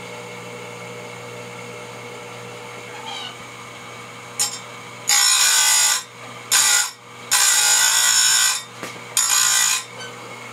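Electric saw-chain grinder's motor running with a steady hum, its wheel grinding chainsaw teeth in four loud passes from about five seconds in. The operator finds the wheel is cutting a little too deep.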